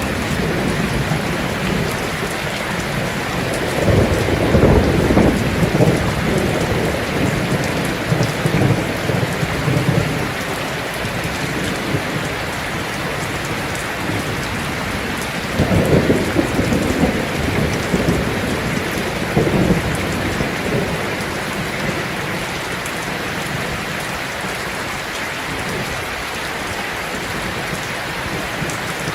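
Heavy rain falling steadily on a tin roof, with two long rumbles of thunder: one a few seconds in lasting several seconds, another about halfway through.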